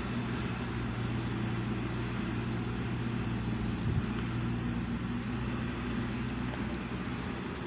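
A steady engine drone, a low even hum that holds one pitch throughout, with a single soft knock about four seconds in.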